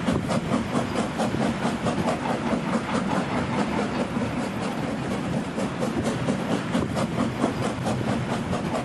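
A train running along the track, its wheels clicking quickly and regularly over the rail joints over a steady hiss.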